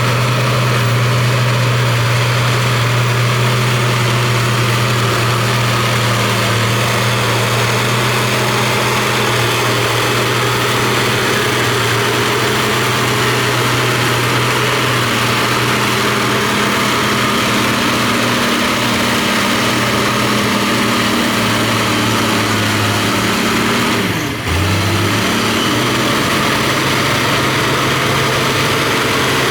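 Heavy diesel engine of earthmoving machinery running steadily, with a brief dip about 24 seconds in as its pitch drops and comes back.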